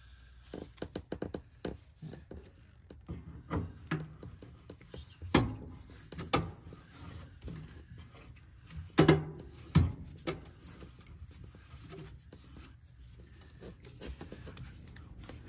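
Hands working on a furnace gas valve and its fittings: small scattered clicks and rubbing, with a handful of louder knocks about five, six, nine and ten seconds in.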